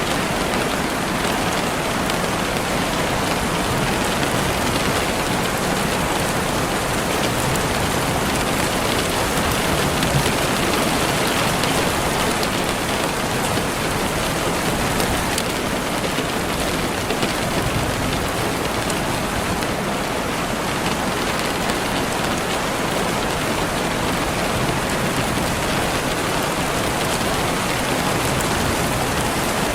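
Steady rainfall, a dense even hiss of drops with occasional faint individual drop ticks.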